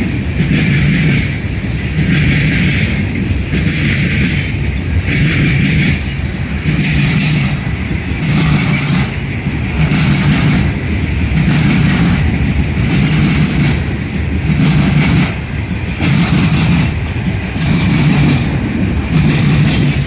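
CN Herzog work train's cars rolling past on the rails, the wheel noise swelling and easing in a steady rhythm about every second and a half as each car goes by.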